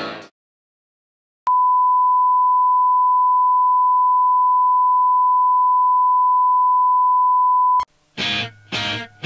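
Broadcast test tone played with colour bars: one steady, pure beep that starts after a brief silence, holds for about six seconds and cuts off sharply. Near the end, music comes in as short, choppy bursts.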